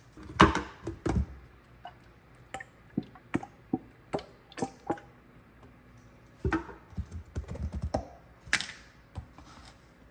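Irregular series of sharp taps and knocks, like kitchen prep on a countertop, the loudest about half a second in and another near the end.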